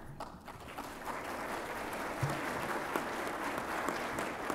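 Audience applauding: many hands clapping, building over the first second and then holding steady.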